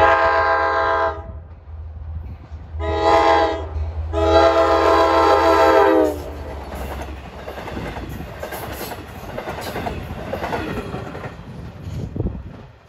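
Nathan Airchime K5LA five-chime horn on a Long Island Rail Road DE30AC diesel locomotive sounding for a grade crossing: three blasts, the last the longest, over the steady hum of the diesel engine. Then the bi-level passenger cars roll past with clickety-clack of wheels over the rail joints, fading near the end.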